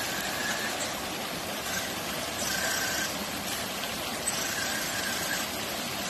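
Stream water rushing over rocks, with the high whine of an ECX Barrage Gen 2 RC crawler's electric motor and gears coming in several short spurts as it is throttled up the rocks.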